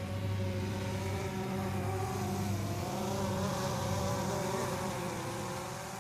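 DJI Phantom 3 quadcopter drone flying close by: a steady multi-tone propeller buzz whose pitch wavers slightly, fading near the end.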